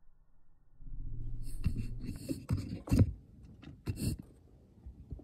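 Handling noise from the rifle and its scope-mounted camera: rubbing with a string of knocks and clicks, the loudest about three seconds in.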